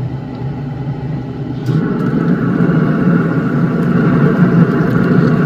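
Recteq pellet smoker running with a steady rumbling hum, which grows louder and fuller a little under two seconds in as the lid is opened onto chicken sizzling on the grate.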